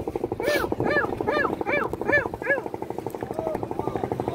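A boat engine chugging steadily with a rapid, even pulse. Over it, in the first two and a half seconds, a gull gives a quick series of about six harsh, arched calls.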